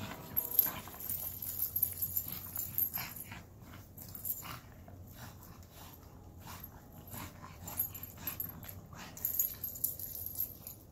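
Bulldog panting hard as she pushes her ball through snow, with a run of short, irregular breaths and scuffs; she is tired out from play.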